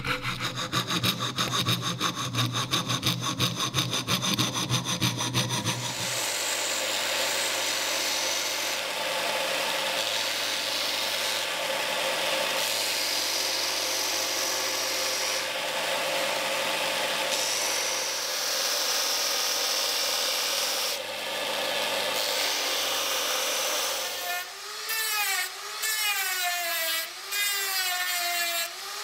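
A coping saw cutting a wooden block with quick, rhythmic back-and-forth strokes. About six seconds in, a bench belt sander takes over, running steadily as the wooden handle blank is ground against the belt. Near the end a small rotary tool with a sanding drum whines, its pitch wavering up and down as it bites into the wood and eases off.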